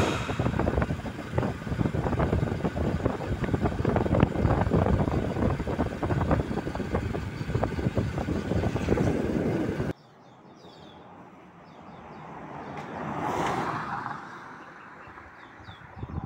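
Rough, steady road noise from a moving vehicle that cuts off suddenly about ten seconds in. Then a quieter stretch follows, with birds chirping and a vehicle passing, its sound rising and fading.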